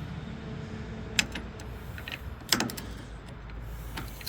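Metal parts of a reel mower's brush holder assembly knocking and clicking as it is worked loose by hand. There are two sharper knocks, about a second in and about two and a half seconds in, over a steady low rumble.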